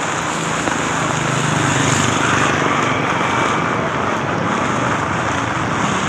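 Heavy rain falling steadily, with a small motor vehicle's engine running under it in the first half.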